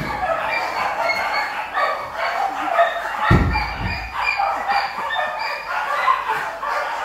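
Many dogs barking over and over in shelter kennels. The short barks overlap throughout, with a brief low rumble about three seconds in.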